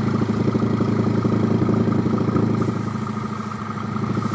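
Small electric airbrush compressor running steadily, a buzzing motor hum with a fast even pulse from its piston.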